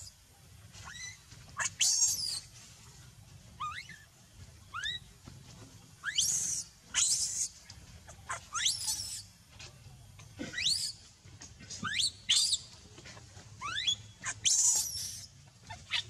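Infant macaque crying in distress: a series of high, shrill shrieks, each sweeping sharply up in pitch and lasting under a second, coming roughly once a second with short gaps.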